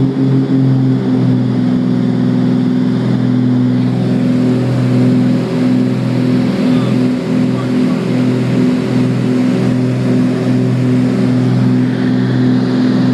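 The two piston engines and propellers of a Beechcraft Baron twin, heard from the back seat inside the cabin, giving a loud, steady drone in the climb after takeoff. There is a slow pulsing beat in the first second, then it evens out.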